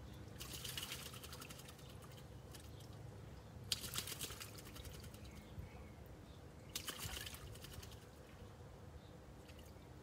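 A magpie splashing in a shallow bird bath as it bathes: three short bursts of splashing water, the second the loudest.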